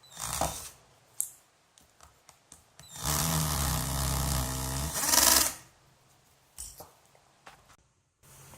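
12V cordless drill: a brief spin near the start and a few clicks, then about two and a half seconds of steady running that ends in a louder burst before the motor winds down.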